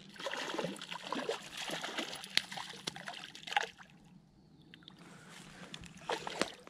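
A hooked chain pickerel splashing and thrashing at the water's surface as it is played in close to the bank. The splashing is busiest in the first few seconds, eases off past the middle, then comes back as a couple of sharp splashes near the end.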